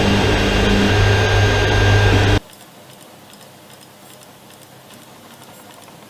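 A machine running steadily, a loud low hum with several steady whining tones, that cuts off abruptly about two and a half seconds in.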